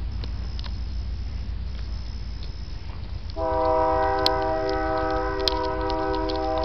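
A horn sounds a long, steady chord of several notes, starting about halfway through and holding on, with two sharp cracks over it.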